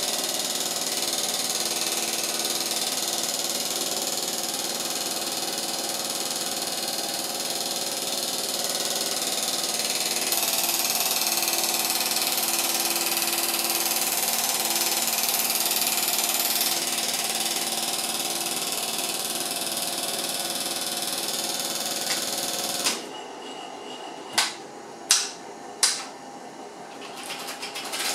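Cine film projector running with a steady whirring, rattling clatter. About 23 seconds in the running sound drops away, and three sharp clicks follow about a second apart.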